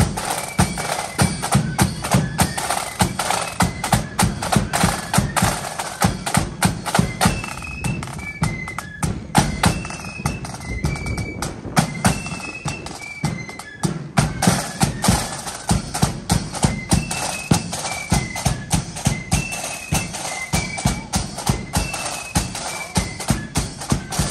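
Marching flute band playing: a high flute melody in short separate notes over fast, steady drumming with a heavy bass drum.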